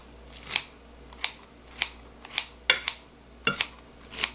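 Kitchen scissors snipping through cooked, seasoned namul greens in a glass dish: a run of about ten short, sharp snips, roughly one every half second.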